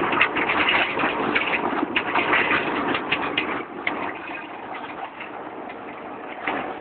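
Bucyrus-Erie 22-W cable-tool drilling rig running: a steady mechanical clatter with irregular knocks, quieter after about four seconds.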